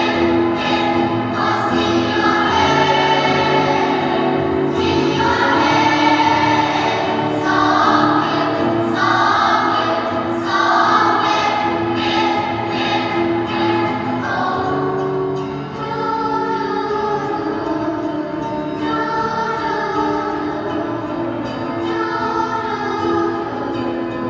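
A school choir singing in harmony, phrases of several voice parts moving over long held lower notes.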